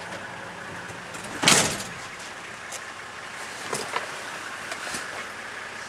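A loud bang and rattle on the safari vehicle's body about a second and a half in, followed by a few lighter knocks.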